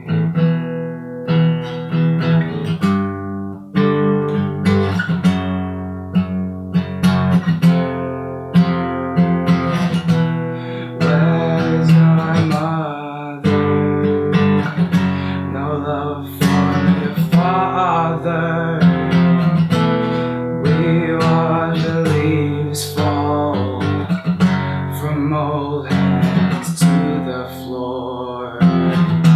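Song accompanied by acoustic guitar, strummed and picked, with a voice singing over parts of it.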